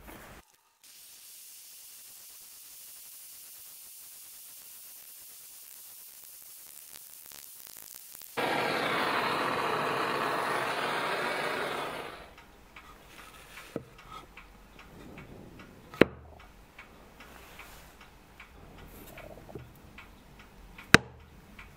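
Gas torch flame burning with a steady hiss for about three and a half seconds, heating a brass clock wheel to sweat a soft-solder joint. A fainter high hiss comes before it, and a few sharp clicks follow later.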